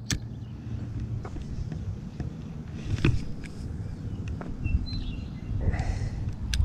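Wind buffeting the microphone in a steady low rumble, with a few sharp clicks from handling a spinning rod and reel, the loudest about three seconds in. A few short high chirps, like a small bird, come near the five-second mark.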